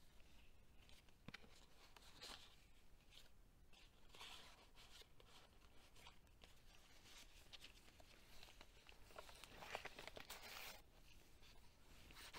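Faint rustling of handled paper as a tag is pulled from a journal pocket and heavy journal pages are turned, with a few soft clicks.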